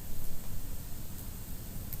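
Wood fire burning in a fireplace: a steady low rumble of flames under a soft hiss, with only a couple of faint crackles.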